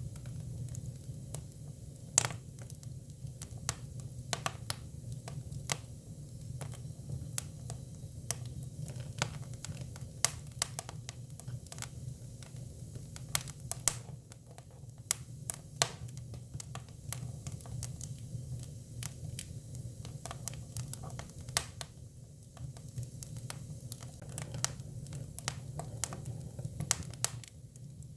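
Hinoki cypress firewood burning, with irregular sharp crackles and pops over a steady low rumble of the fire.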